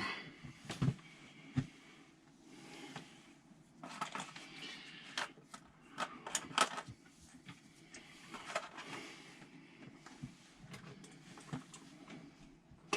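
Hands working on old electrical wiring: scattered light clicks and taps with short bursts of rustling.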